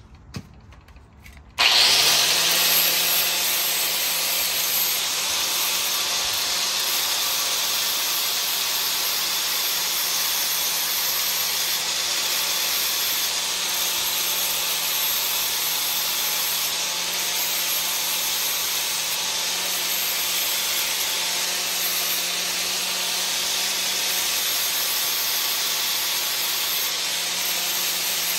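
Electric angle grinder starting about a second and a half in, spinning up and then grinding steel steadily with an even, loud hiss.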